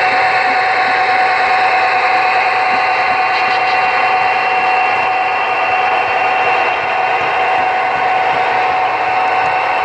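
HO scale model freight train running past on the layout's track: a steady mechanical rolling noise with a steady whine through it.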